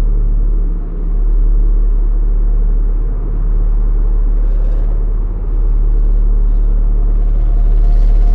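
Dark ambient drone sound effect: a deep, steady rumble made of low sustained tones. Its level dips briefly three times, roughly every two seconds.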